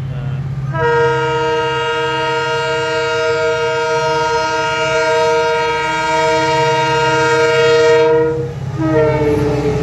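WDP4D diesel locomotive's horn sounding one long blast of several notes together for about eight seconds. After a brief break, a second blast starts near the end. A steady low rumble runs underneath.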